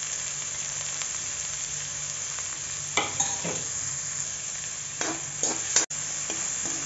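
Chopped onion sizzling steadily in hot oil in a steel kadhai. Near the end a metal spoon stirs and scrapes the pan.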